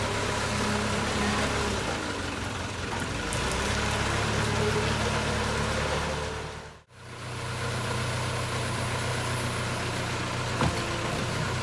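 JCB 3CX backhoe loader's diesel engine running steadily, with a short fade out and back in about seven seconds in, and a single short click near the end.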